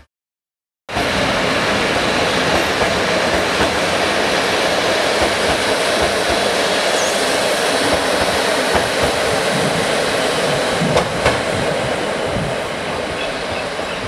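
Passenger train coaches rolling past alongside the platform: a steady rush of wheel and rail noise that starts abruptly about a second in, with a few sharp clicks near the end and the noise easing slightly as the last coaches go by.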